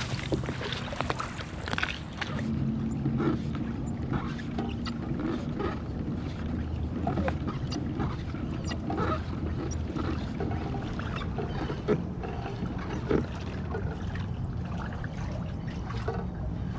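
A pedal-drive fishing kayak under way on calm water: a steady low hum from the drive and hull, with many small clicks and knocks.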